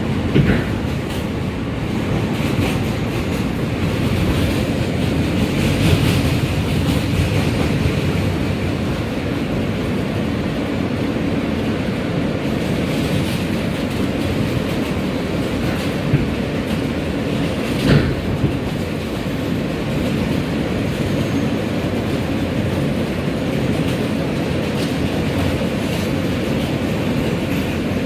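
Subway train running along elevated track, heard from inside the car: a steady rumble of wheels and motors with a few sharp clacks over the rail joints, the loudest about two-thirds of the way through.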